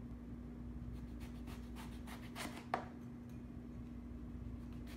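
Knife slicing a large eggplant into thin rounds on a cutting board: a few short cuts in the middle, ending in one sharper knock as the blade meets the board. A steady low hum sits underneath.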